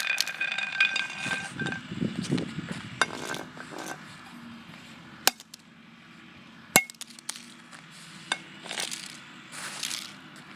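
Scattered sharp clicks and clinks from a battered flip phone being knocked about, the two loudest about five and seven seconds in.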